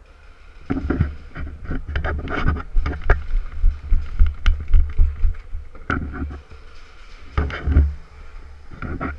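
Handling and movement noise on a body-worn action camera: irregular low thumps with rustling and scattered sharp clicks, heaviest in the first two-thirds and again in short bursts near the end.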